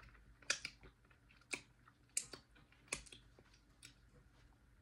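Quiet, sharp, wet clicks and smacks of fingers being licked clean, about six of them spread unevenly over a few seconds.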